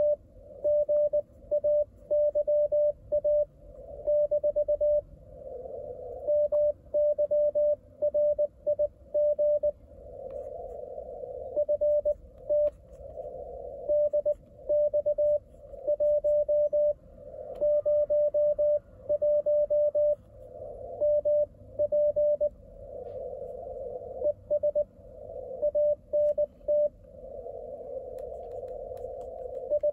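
Morse code (CW) signal from an ICOM IC-705 transceiver tuned to 28.056 MHz: a single steady mid-pitched beep keyed on and off in quick dots and dashes, the other station's transmission being copied. Patches of band-noise hiss fill the gaps between characters.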